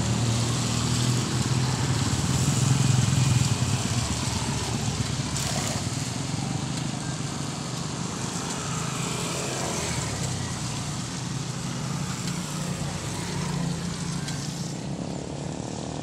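A small engine running steadily at a constant speed, with a cast net splashing into the water once.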